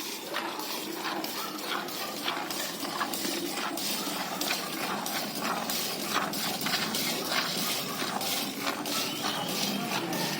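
Milk squirting into a metal pail as a Gir cow is milked, a quick, irregular run of splashing strokes.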